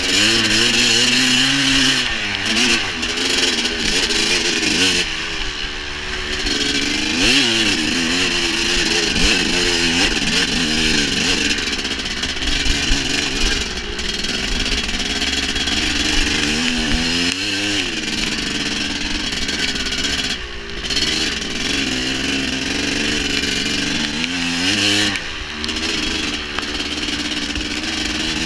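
Dirt bike engine running under way, its pitch rising and falling again and again as the throttle opens and closes.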